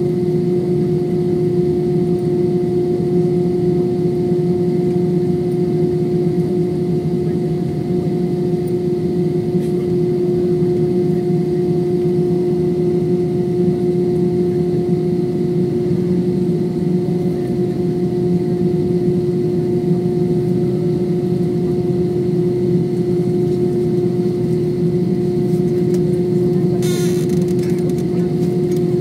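Steady hum inside a jet airliner's cabin as it taxis with its engines near idle, a constant whine-like tone riding over a low rumble. Near the end there is one brief noise.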